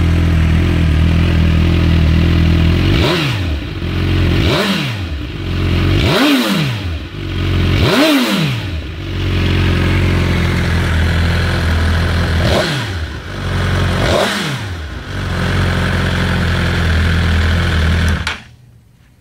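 Suzuki sport bike engine idling steadily, blipped six times with quick revs that rise and fall back to idle, then switched off near the end, cutting off suddenly.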